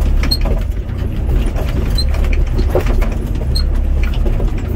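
Doosan DX55 mini excavator's diesel engine running steadily, heard from inside the cab, with a few short high clicks scattered through it.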